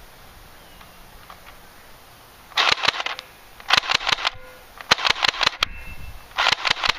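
Airsoft gun firing four short bursts of rapid shots, each a quick run of sharp cracks about half a second long, spaced about a second apart, starting a couple of seconds in.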